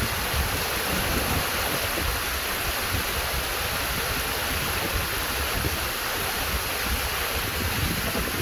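Waterfall: water pouring and splashing in a steady, even rush, with an uneven low rumble underneath.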